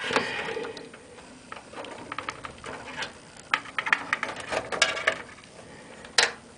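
Irregular clicks, taps and rustling from hands handling computer hardware and cables, with one sharper click near the end.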